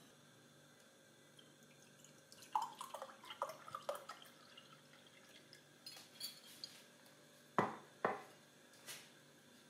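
Liquid poured from a small glass jar into a glass tumbler, gurgling in short bursts with a rising pitch for about two seconds as the glass fills. A few light clicks follow, then two sharp knocks and a softer third near the end.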